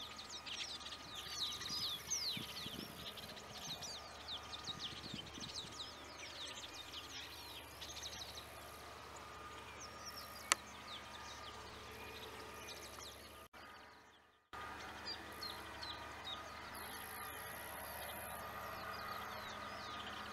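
Birds chirping outdoors, many quick sliding calls that thin out after the first half, over a faint steady hum and low rumble. The sound drops out for about a second about two-thirds of the way through, then continues.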